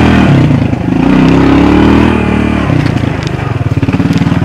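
ATV engine revving up and back down, then settling about three seconds in to a lower, rapidly pulsing putter.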